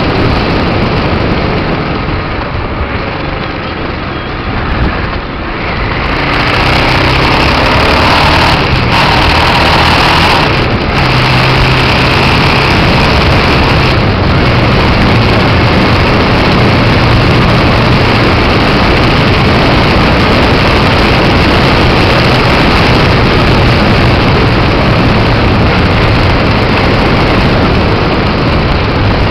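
Aprilia Pegaso 650 single-cylinder motorcycle riding along the road, its engine note steady under loud wind rush on the camera microphone. The sound is quieter for a few seconds near the start, then loud and steady from about six seconds in.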